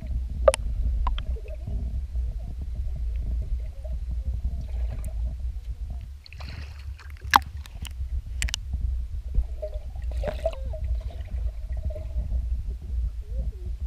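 Lake water heard underwater through a submerged action camera's housing: a muffled, steady low rumble of churning water along the boat's hull, with a few sharp clicks.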